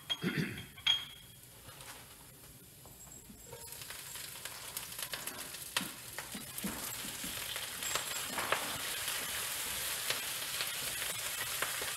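Escarole leaves going into a hot pan of garlic in olive oil, sizzling and crackling in the oil. A few knocks sound at the start, and the sizzle sets in about four seconds in and grows louder as more leaves go in.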